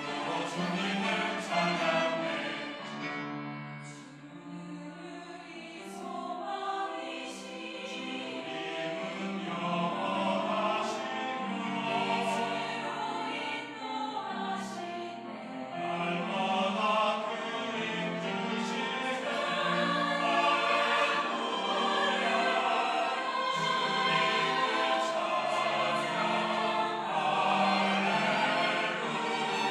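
Church choir singing an anthem, softening about four seconds in and then gradually building louder.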